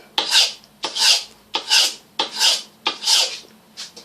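Knife edge scraped in repeated strokes across dry 240-grit wet-and-dry abrasive paper, about six strokes, one every two-thirds of a second, clearing burrs from the straight edge.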